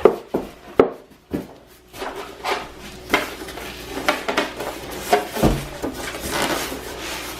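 Clicks, knocks and rubbing of hard parts and packaging being handled as a blender base is lifted out of its box, with a quick string of sharp knocks at the start and a low thud about five and a half seconds in.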